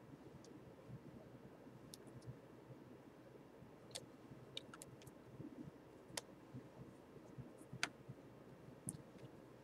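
Near silence: quiet room tone with a few faint, sharp clicks at irregular moments.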